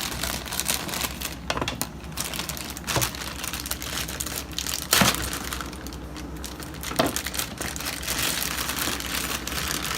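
Plastic packaging crinkling as the pieces of an action figure are unwrapped, with a few sharp snaps of the plastic about every two seconds.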